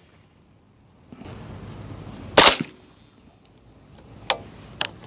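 Single shot from a suppressed 300 Blackout rifle firing 220-grain subsonic ammunition, about two and a half seconds in. Two short, sharp clicks follow about two seconds later.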